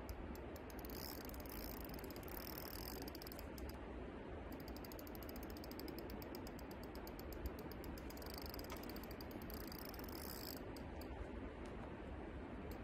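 Spinning reel's drag clicking in rapid, even runs as a heavy hooked fish pulls line off the bent rod. One run goes from about half a second in to about three seconds, and a longer one from about four and a half seconds to nearly eleven.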